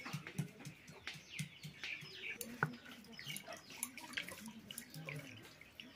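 Small birds chirping, with scattered light knocks and scrapes from a stone pestle crushing spices on a flat grinding stone.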